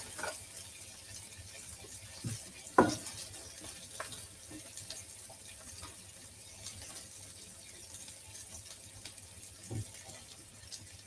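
Iceberg lettuce leaves being pulled off the head by hand, giving a few crisp snaps, the sharpest about three seconds in, over a faint steady hiss.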